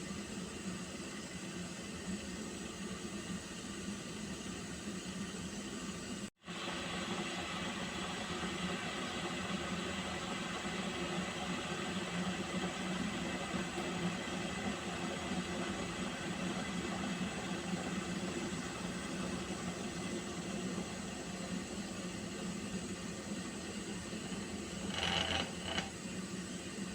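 Pot of water heating toward the boil: a steady hiss with a constant low hum. The sound drops out for an instant about six seconds in, and two short, sharper sounds come near the end.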